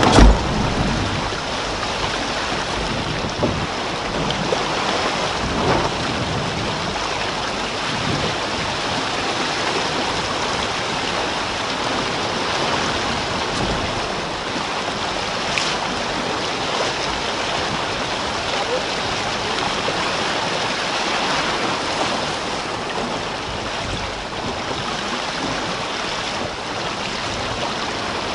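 Steady rushing of water along the hull and wake of a Jeanneau Sun Fast 3200 sailing yacht under sail at about 12 km/h. A brief low thump right at the start.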